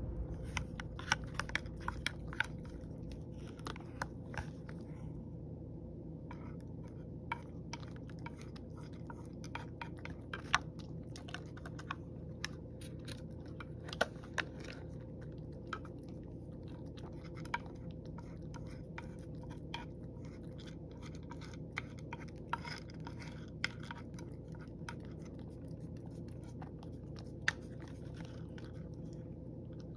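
Domestic cat eating from a shallow tray: irregular chewing clicks, sometimes several a second, over a steady low hum.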